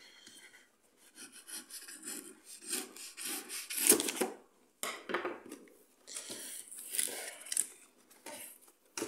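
A small knife cutting and scraping through a cardboard box's seam in irregular rasping strokes, loudest about four seconds in; near the end, cardboard rubbing as the box is pulled open by hand.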